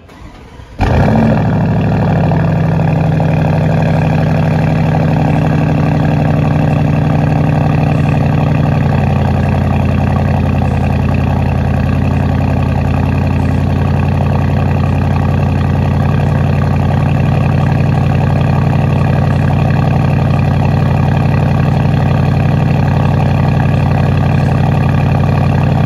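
2021 Porsche Cayenne GTS's twin-turbo 4.0-litre V8 starting up at the exhaust, with a brief rev flare, then settling into a steady idle. The idle drops slightly lower about nine seconds in.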